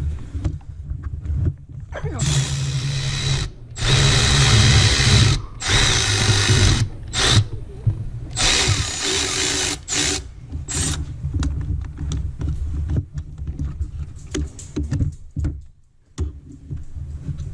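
Power ratchet running in short bursts, about four of a second or so each, undoing the bolts of a serpentine belt tensioner, followed by scattered clicks and knocks of tools on metal.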